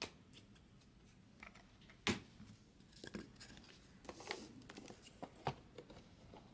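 Hands handling a metal trading-card case and plastic card holders: scattered light clicks and knocks with faint rustling, the loudest knock about two seconds in.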